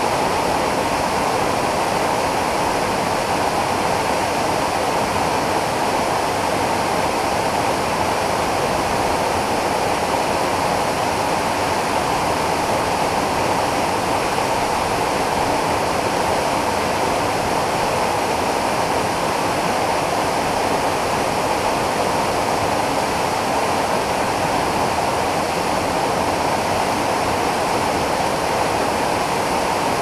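Waterfall pouring steadily into a pool, a constant loud rush of water.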